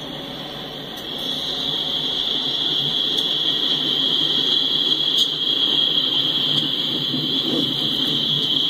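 Empty open-top coal cars of a freight train rolling past: a low rumble of wheels on rail under a steady high-pitched whine from the wheels, growing louder about a second in.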